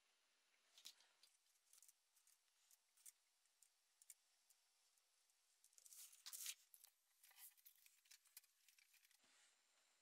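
Faint, irregular clicks and snips of an automatic wire stripper cutting and pulling insulation off thin PC-fan wires. A busier run of clicks comes about six seconds in.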